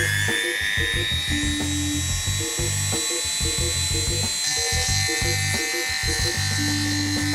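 Small handheld electric rotary tool spinning up to a steady high whine, with a ball burr grinding along a crack in a cast-iron exhaust manifold to groove it out before welding. The whine turns harsher about halfway through.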